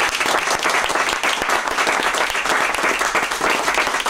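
Audience applauding steadily at the end of a sung song, a dense clatter of many hands clapping.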